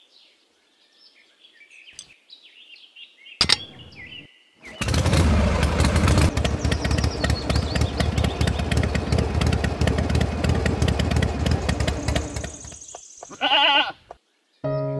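A small engine running steadily with a rapid chatter for about eight seconds, then a sheep bleating once near the end. Faint bird chirps come before the engine.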